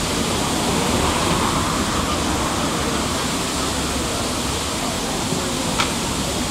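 A steady, even rushing noise, with one sharp click near the end.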